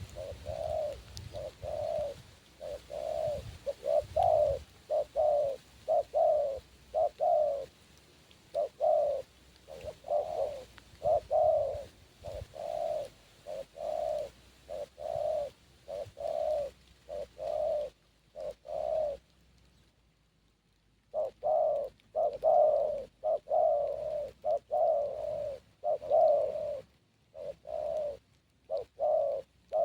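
Spotted dove (tekukur) cooing over and over, short low notes about two a second in a long run, breaking off for about two seconds partway through before starting again.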